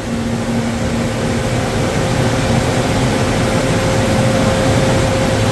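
HP Jet Fusion 4200 Multi Jet Fusion 3D printer running mid-print: a steady mechanical whir of fans and the moving print-head and lamp carriages, with a thin steady hum.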